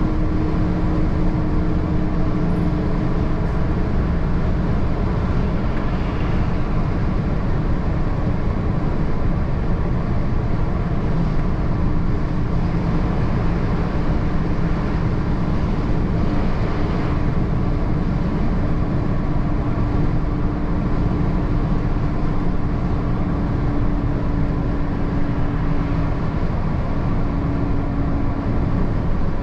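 Articulated lorry's diesel engine and tyre-road noise while driving steadily, a continuous drone whose pitch holds level and shifts slightly near the end.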